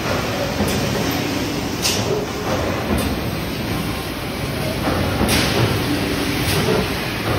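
An 800-ton Sumitomo hot forging press and its shop running with a steady, loud mechanical rumble. Several short sharp sounds are spread through it.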